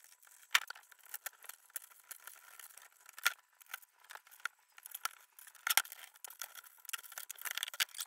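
Scattered clicks, rattles and knocks of a screwdriver and hands working on a PC tower case while unscrewing and lifting out its power supply, thickest near the end.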